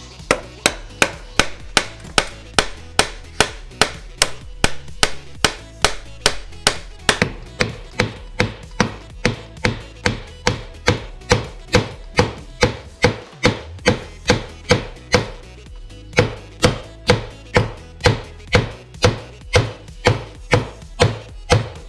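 Steady, evenly spaced hammer blows, about three a second, with a short break a little past halfway: parts being tapped home during a two-stroke motorcycle engine rebuild.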